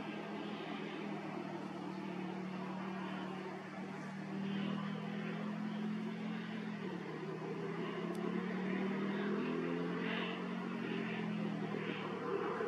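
Steady, distant motor drone whose pitch wavers slowly up and down, over a faint hiss.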